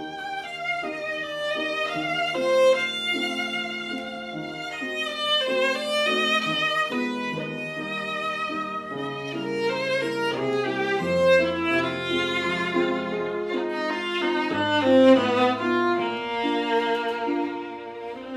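Violin playing a melody with vibrato, accompanied by piano.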